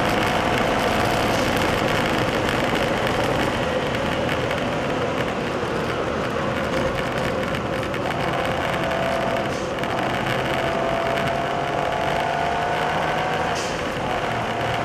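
Turbocharged Suzuki Kei Sports kei car cruising on an expressway, engine and road noise heard from inside the cabin and sped up to double speed. A steady whine runs over the noise and climbs slightly in the second half.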